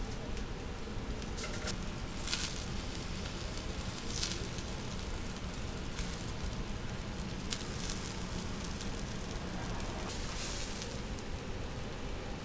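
Chicken skewers sizzling as they cook: a steady hiss with scattered crackles and pops.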